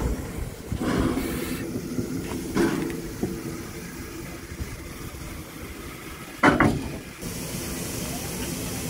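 Ivatt Class 2 2-6-2T steam tank locomotive standing, a low rumble with a few thumps, the loudest about six and a half seconds in. A steady steam hiss starts about seven seconds in.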